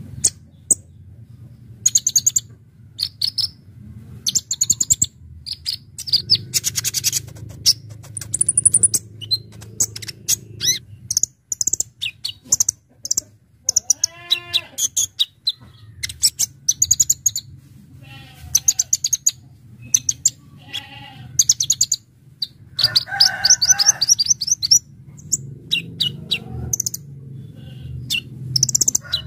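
A Kolibri Ninja (konin) sunbird singing: bursts of sharp, very high, rapid chattering notes, one after another with short gaps. Other birds call more faintly in the background, including a lower, slurred call about halfway through, over a steady low hum.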